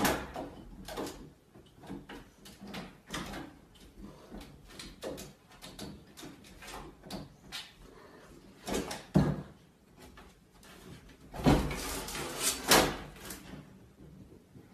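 A cat pawing at a closed panel door, making the door knock and rattle in its frame in a string of irregular taps. Louder knocks come about nine seconds in and again around twelve to thirteen seconds in.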